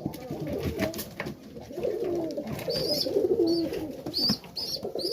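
Domestic pigeons (Serbian highflyers) cooing. About halfway in, a run of short, high chirps starts and repeats over the cooing.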